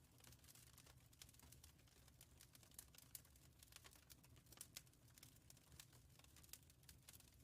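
Wood fire crackling faintly in a fireplace: frequent irregular small pops and snaps over a low steady rumble.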